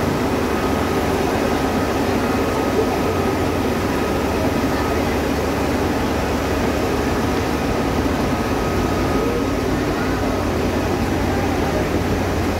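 Steady, even din of tea-processing machinery running: electric motors, belt drives and leaf conveyors, with a low hum and a faint high whine over it.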